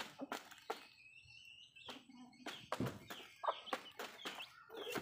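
Backyard chickens clucking while they peck, with many quick sharp taps of beaks striking the ground and a cardboard box; the taps pause briefly about a second in.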